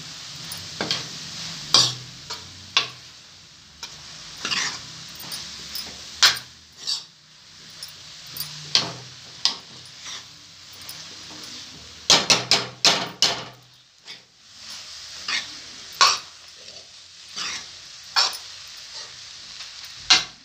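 A metal spoon stirring and scraping soaked poha around a kadhai, with repeated clinks and knocks against the pan over a light sizzle of frying. A quick run of knocks comes a little past the middle.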